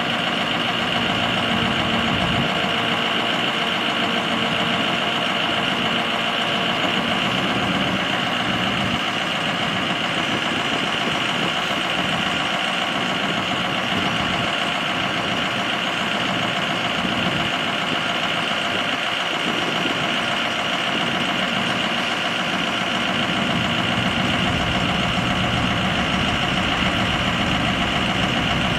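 6.0L V8 turbo-diesel engine of a 2005 Ford F550 idling steadily, with a steady high whine above the engine noise.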